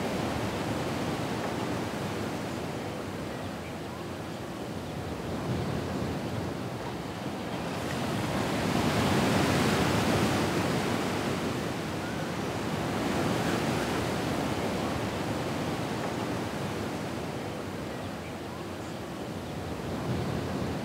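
Ocean surf, waves washing in as a steady rushing hiss that rises and falls in slow swells, loudest about halfway through.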